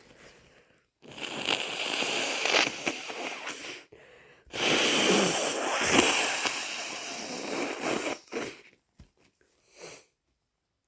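Two long, snotty nose blows from a nose congested with a heavy cold, each lasting about three seconds; a few short sniffs follow near the end.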